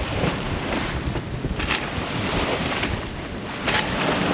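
Strong wind buffeting the microphone on a small sailboat under reefed sails, over the rush of water along the hull, with two louder swishes about one and a half seconds in and near the end.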